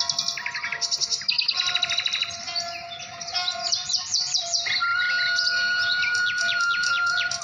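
Several birds calling at once: rapid high trills, short chirps and quick falling whistles overlapping, with a long steady whistle-like tone held through the second half.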